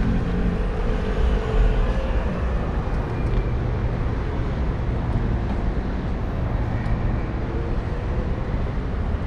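Steady city traffic noise heard from a moving bicycle, with a heavy low rumble and no distinct single event.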